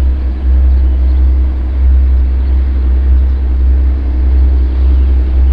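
Two-stroke V12 14D40 diesel engines of a 2M62 locomotive working under the load of a coal train: a loud, deep, steady rumble that swells and dips slightly.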